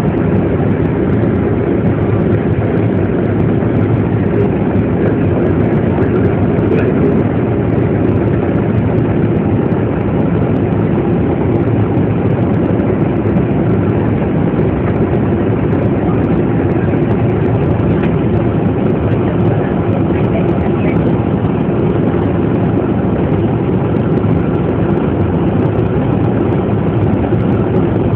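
Steady low rumble of a large vehicle's engine idling, heard from inside while it stands still.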